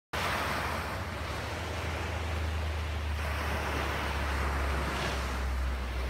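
Ocean surf: a steady rush of breaking waves with a deep rumble underneath.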